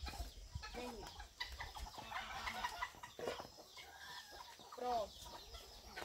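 Chickens clucking: scattered short calls over a faint farmyard background.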